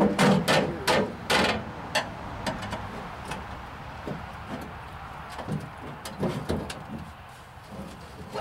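Screwdriver prying and knocking at a partly cut-out truck cab panel: a quick run of about five hard metal knocks in the first couple of seconds, then lighter, scattered knocks. The panel will not come loose, which the owner puts down to it still being held where it is welded to the inner rocker panel.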